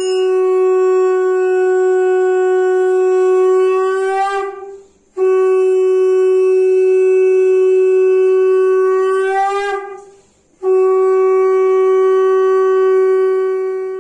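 Conch shell (shankha) blown in three long, steady blasts of about four to five seconds each. The first two waver upward in pitch as they fade, and the third cuts off sharply.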